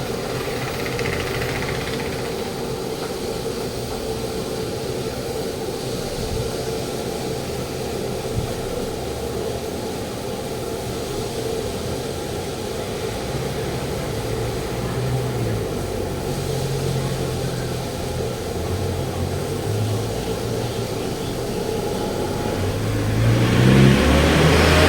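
Road traffic over a steady mechanical hum. Near the end a vehicle passes close by, its engine rising in pitch as it grows louder.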